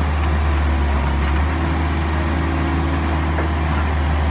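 Kobelco SK135SR excavator's diesel engine idling steadily, a constant low hum.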